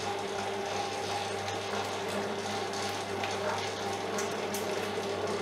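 Maxima MSM8 spiral mixer running steadily, its motor humming low as the spiral hook kneads a wet pizza dough.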